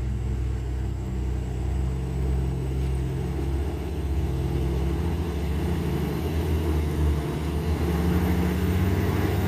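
Heavy trucks' diesel engines running in a steady low rumble, growing a little louder in the second half as one truck comes up close.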